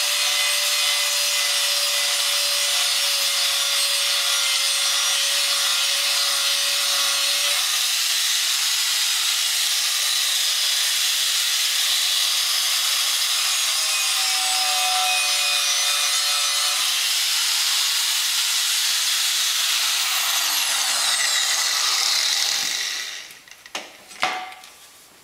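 Milwaukee 4.5-inch angle grinder with a coarse Scotch-Brite stripping pad abrading the cooking surface of a cast iron skillet: a steady, loud grinding hiss over the motor's whine. About 22 s in it is switched off and winds down with a falling whine, followed by a couple of knocks as it is set down.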